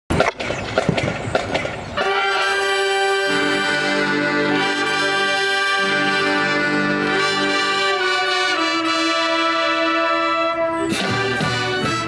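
Marching band brass section playing long held chords in rehearsal. The chords begin about two seconds in after a few scattered short sounds, and the notes shift a few times before the sound changes near the end.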